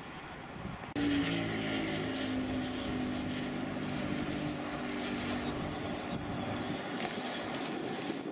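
A distant engine droning, starting abruptly about a second in, its pitch sinking slightly as it fades out over a few seconds, over steady outdoor noise.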